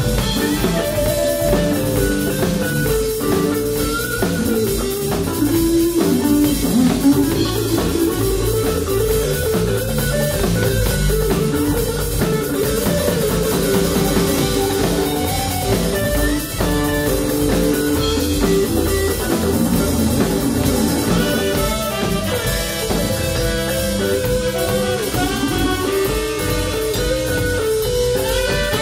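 Live band playing: a horn section of trumpet, alto and tenor saxophones carrying melody lines over electric guitar, electric bass and drum kit.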